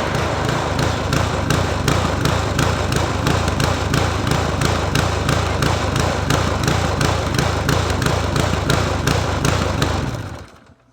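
Small single-cylinder walk-behind mower engine on a Toro TimeMaster running unloaded with a regular pulsing, then shutting off about ten seconds in. The owner takes the unevenness for surging, which he puts down to the engine not being under load.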